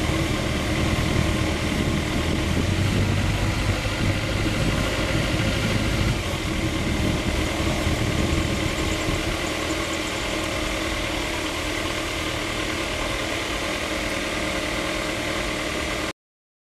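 Sport motorcycle engine running at low speed while riding between lines of slow traffic, heard from the bike. Its deep rumble fades somewhat about ten seconds in, and the sound cuts off abruptly near the end.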